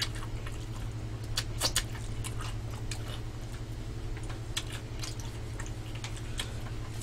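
Close-miked eating: chewing, with scattered short clicks of chopsticks and spoons against bowls, as people eat Chinese black-bean noodles. A steady low hum runs underneath.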